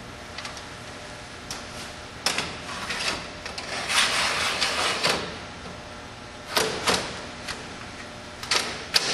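Sharp clicks and knocks of hard parts being handled, with a scraping slide lasting about three seconds near the middle and two more pairs of clunks near the end, over a steady hum.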